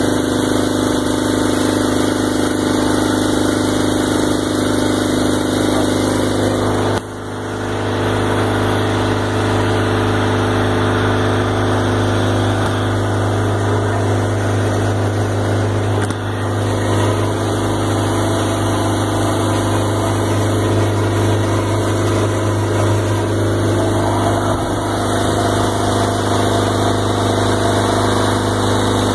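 An engine running steadily at a constant speed, with a brief drop in level about seven seconds in.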